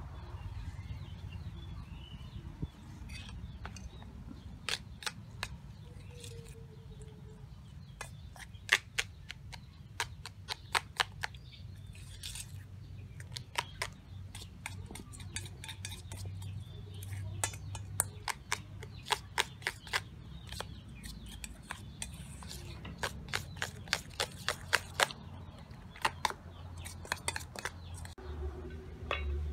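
Metal spoon clinking against a stainless steel bowl while stirring beaten egg and chopped greens: irregular runs of sharp clinks, several a second.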